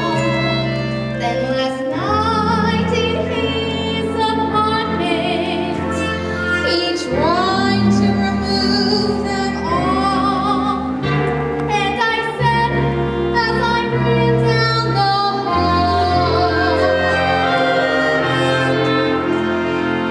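Women singing a musical-theatre number with a live pit orchestra; held bass notes change every second or two under sung notes held with vibrato.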